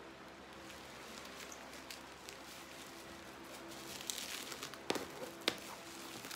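Plastic bubble wrap faintly rustling and crinkling as it is handled, getting busier about four seconds in, with two sharp clicks about half a second apart near the end.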